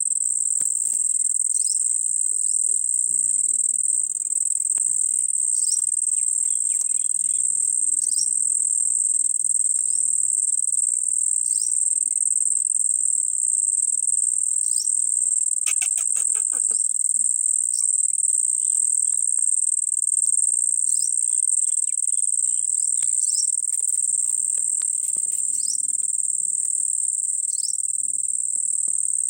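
A steady high-pitched insect drone, with short chirps every couple of seconds and a brief rapid trill about halfway through.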